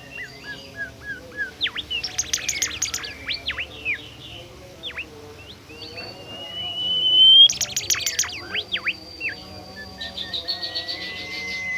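Songbird singing a fast, varied song of sharp chirps and downward-sweeping notes, broken by rapid stuttering bursts and long thin whistles that glide upward. This is continuous 'gacor' singing.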